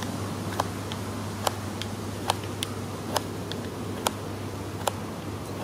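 Carving knife taking short slicing cuts off a wooden spoon in a chest lever grip, with hands levering apart in front of the chest. Each stroke makes a crisp click, about ten of them, irregularly spaced at roughly two a second.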